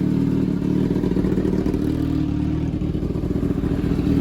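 2022 Kawasaki ZX-6R's inline-four engine idling steadily just after a fresh oil change, running smoothly with no rod knock.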